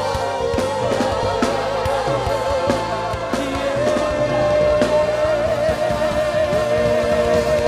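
Live church worship band playing a slow praise song, with a drum kit keeping time under a long held, wavering melody note.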